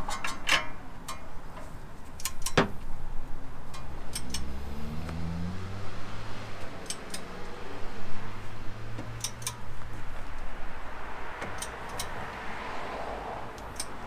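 Ratchet clicks of a half-inch drive click-type torque wrench tightening the castle nut on an outer tie rod end, in short groups of a few clicks. The nut keeps turning without the wrench reaching its 60 ft-lb setting. A vehicle engine hums in the background from about four to ten seconds in.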